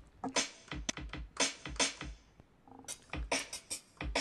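Akai XR20 drum machine being played by hand: a loose, unevenly spaced run of drum hits, some deep kick thumps and others bright, high hits, with no real pattern.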